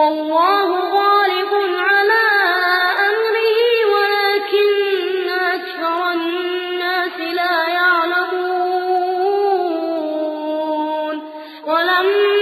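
Male Quran reciter chanting in melodic tajweed style: one long phrase of held notes that waver and glide. About eleven seconds in it breaks off for a breath, then starts again.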